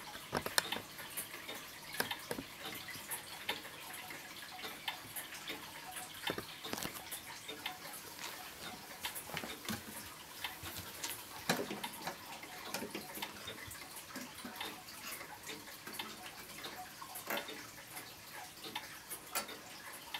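Antique German HAC bracket clock movement ticking, with sharper irregular clicks and knocks mixed in over a light hiss.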